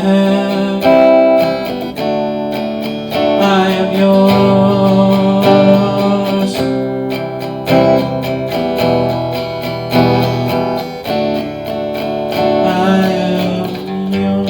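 Acoustic guitar strummed and picked, with ringing chords and no singing.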